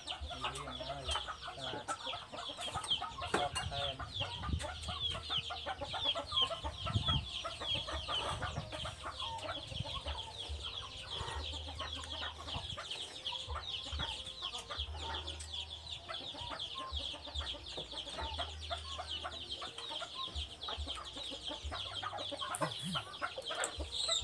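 A dense, unbroken chorus of short, high peeping calls from birds, many a second, with lower calls scattered beneath.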